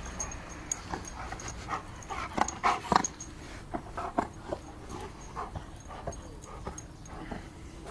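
Giant Schnauzer whimpering and panting in short bursts, excited, with the loudest cluster of whimpers about two and a half to three seconds in.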